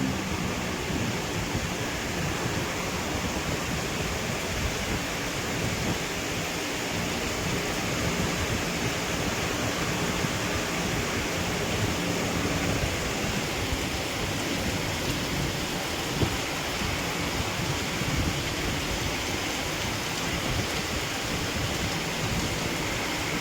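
Heavy rain pouring steadily in a tropical storm, an even hiss, with one short knock about two-thirds of the way through.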